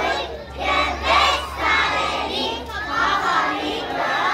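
Many young children's voices at once, loud and overlapping, calling out and singing together.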